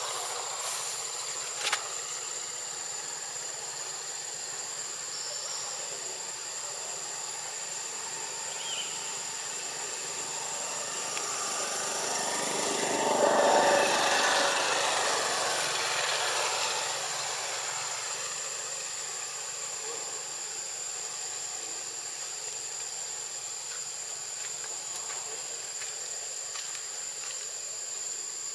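Outdoor ambience with a steady high-pitched insect drone. About twelve seconds in, a passing vehicle swells up and fades away over several seconds.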